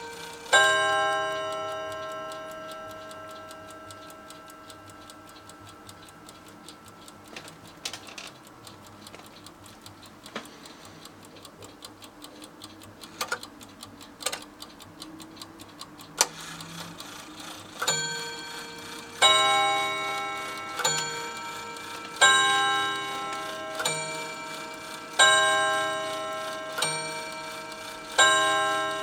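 Mantel clock by VEB Feinmechanische Werkstätten Zella-Mehlis ticking and striking its chime. One ringing, many-toned strike comes just after the start and slowly dies away. After a stretch of quiet ticking, the clock strikes again about every one and a half seconds, alternating softer and louder strikes, each left ringing.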